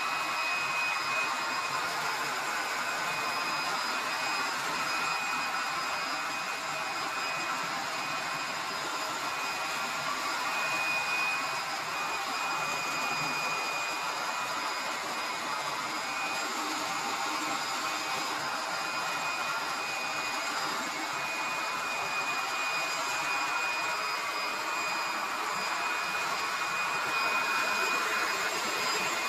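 A small electric blower motor running steadily, a whirring rush of air with a constant high whine.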